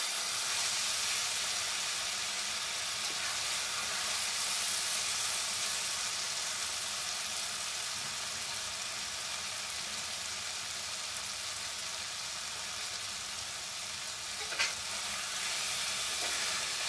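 Chopped okra, onions and green chillies sizzling steadily as they fry in oil with the spice masala in a pan. A short knock comes near the end.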